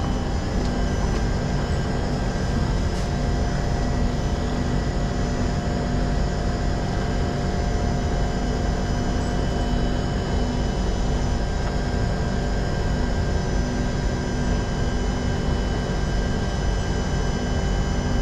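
Steady hum of a Singapore MRT train standing at a station, its ventilation and onboard equipment running, with a few faint steady tones over an even rushing noise.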